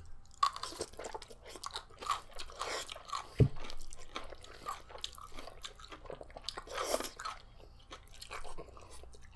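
Close-up chewing and eating sounds of people eating, with many small irregular clicks and mouth noises. A single sharp thump comes about three and a half seconds in.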